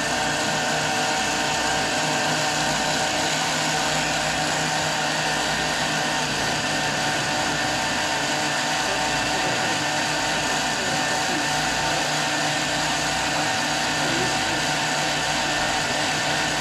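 Countertop blender motor running at a steady speed, blending hot fish broth with fish and seasonings into a purée.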